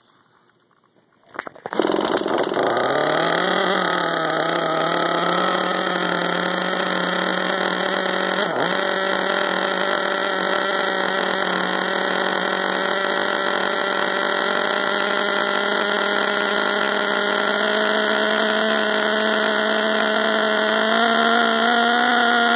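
Gas-powered RC monster truck's small two-stroke engine starting about a second and a half in, then idling steadily, heard very close from a phone strapped to the truck. The pitch rises slightly near the end.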